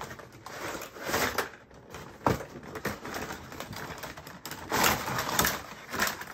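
Cardboard packaging being handled and pulled apart: irregular rustling and scraping with a few light knocks as the carton is worked off the plastic tackle box.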